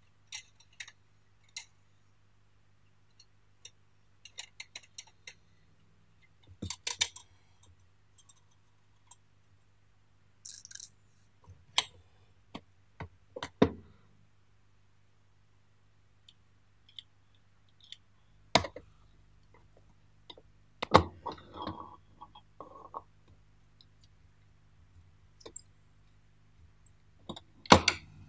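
Scattered clicks, clinks and knocks of small metal parts and hand tools against the rusty metal case of a 1960s Mitsubishi hand-cranked pencil sharpener as it is taken apart, with a few louder knocks among the light clicks.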